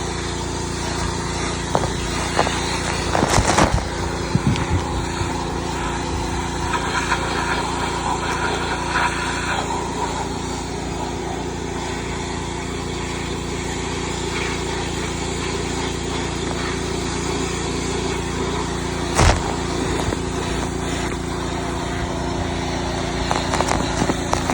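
Pressure washer running steadily, a small engine's hum under the hiss of the water spray. Two brief knocks stand out, one a few seconds in and one about three quarters of the way through.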